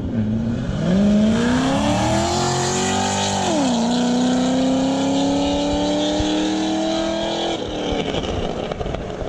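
Cammed Corvette V8 accelerating hard past, its note climbing, dropping sharply at a gear shift about three and a half seconds in, then climbing again through the next gear before it fades away near the end.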